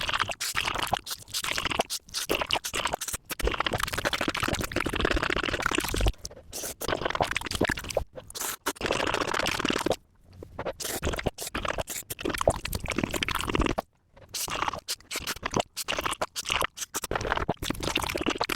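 Close-miked mukbang eating: loud, crackly bites and chewing of crunchy food, with a couple of short breaks where the clips change.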